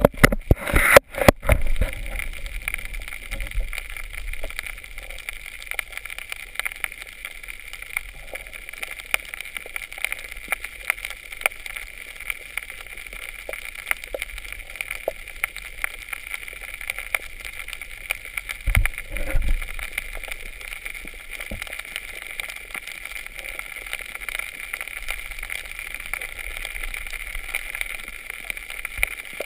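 Underwater ambience heard through a submerged camera: a steady hiss with a fine crackle of many small clicks. A few loud knocks and rushes come in the first couple of seconds, and a low thud comes about two-thirds of the way in.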